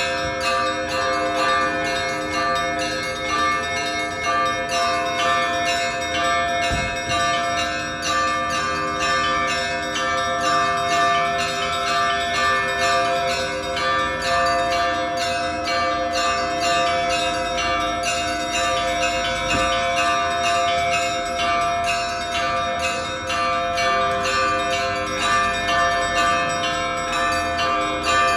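Russian Orthodox church bells ringing: several bells of different pitches struck rapidly and without a break, their tones overlapping.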